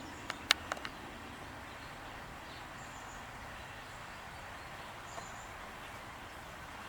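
Steady faint outdoor background noise, with a quick cluster of four sharp clicks under a second in and a couple of brief, faint high bird chirps later on.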